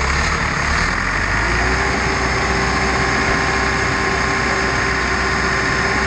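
REED A40 trailer concrete pump's diesel engine running steadily, with a steady whine joining in about a second and a half in.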